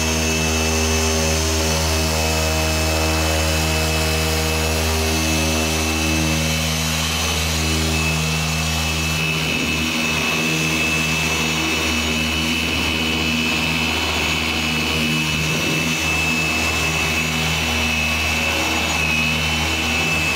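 Electric FLEX dual-action polisher running steadily against car paint while cutting back an old repaint with compound: a low hum under a steady high whine. The hum changes about nine seconds in.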